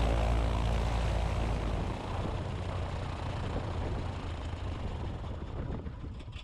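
Light propeller aircraft engine running with a steady drone, fading gradually.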